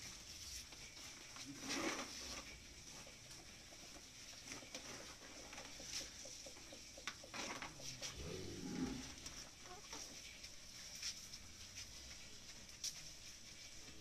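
Chickens clucking now and then, over a steady high-pitched hiss.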